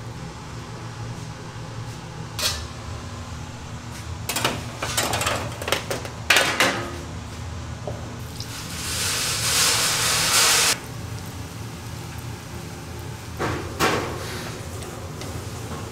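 Metal baking trays clattering and scraping against a stainless-steel rack as trays of proofed donut dough are handled, over a steady low hum of kitchen equipment. Midway, a loud hiss lasts about two and a half seconds and cuts off suddenly.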